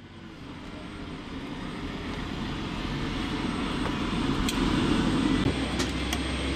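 Aircraft engine running steadily, growing louder over the first few seconds, with a thin high whine and a few light clicks in the second half.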